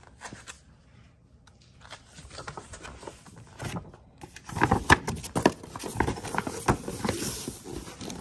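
A large folded paper guide sheet being pulled out and unfolded: the paper rustles and crackles, loudest over the second half. Before that there are a few scattered handling clicks.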